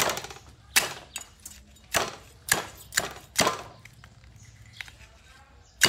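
Heavy cleaver chopping raw meat and bone on a thick wooden chopping block: about six sharp chops at uneven intervals, most of them in the first three and a half seconds, with a lighter one near the end.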